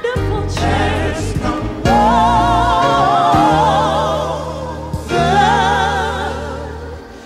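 Gospel song: a singer holding long notes with wide vibrato over sustained low bass notes, the music dipping briefly near the end before coming back in.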